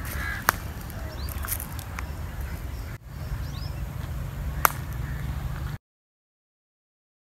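Outdoor bush ambience: a crow caws once at the start, with a few faint bird chirps over a steady low rumble. Two sharp snaps come about half a second in and again about four and a half seconds in, and the sound cuts out to silence about six seconds in.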